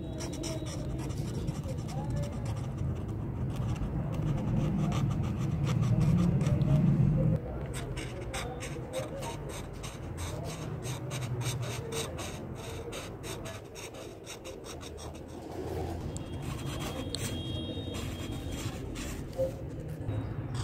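Broad-tipped marker scratching over paper in quick back-and-forth colouring strokes. A low rumble underneath grows louder and cuts off abruptly about seven seconds in.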